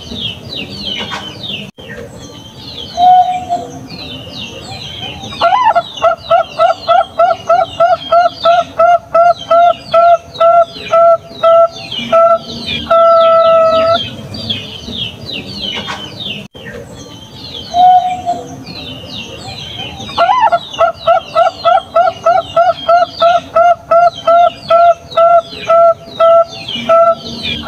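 Zebra dove (Bangkok-type perkutut) cooing. A short low note is followed by a rising note that runs into a long series of quick, clipped coos, about two a second, and the song ends on a long held coo. The whole song comes twice, over continuous high chirping of other small birds.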